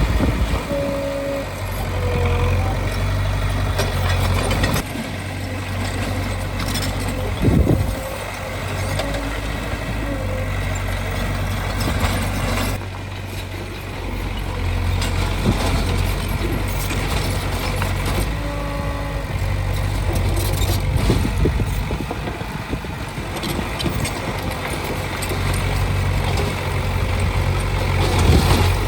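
Heavy diesel engines of a bulldozer and dump truck running, a steady low drone with short wavering squeals now and then and one sharp clank about seven and a half seconds in.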